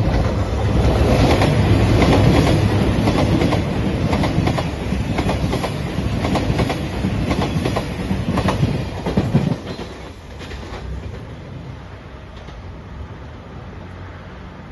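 JR Shikoku 2700 series diesel limited express train passing close by, its wheels clacking over the rail joints. The noise drops off sharply about ten seconds in as the last car clears, leaving a lower hum.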